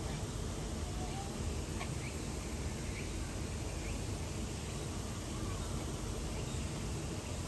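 Steady outdoor background noise, a low rumble and hiss, with a few faint short chirps over it.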